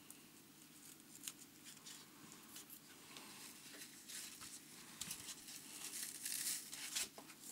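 Faint rustling and crinkling of fly-tying material being handled, with light tearing sounds and scattered small clicks, growing busier and louder in the second half.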